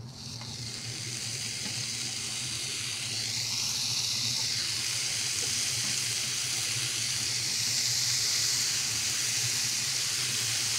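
Bacon strips sizzling on the hot ribbed plate of a preheated Tefal OptiGrill XL contact grill as they are laid on one after another. The hiss grows louder over the first few seconds as more strips go down, then holds steady.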